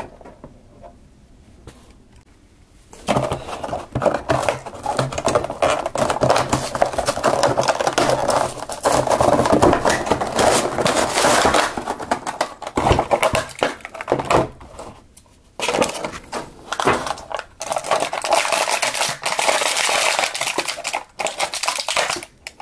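Action-figure packaging being opened by hand: plastic and cardboard crinkling, crackling and tearing. It starts a few seconds in and goes on with one short pause past the middle.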